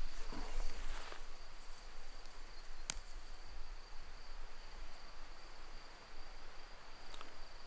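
Steady high-pitched insect trill, with faint rustling of plants as wild chives are picked by hand and one sharp click about three seconds in.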